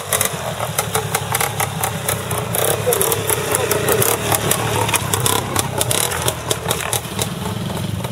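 Trials motorcycle engine running as the bike climbs a rocky slope, with voices in the background.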